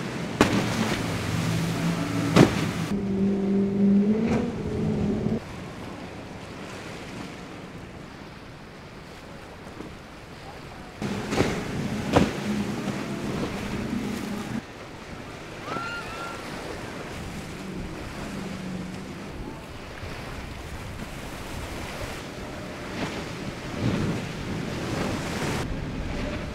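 Powerboat engines droning as boats run at speed through choppy inlet water, over a steady wash of waves and surf, with some wind on the microphone. The engine drone is loudest for the first few seconds and again around the middle.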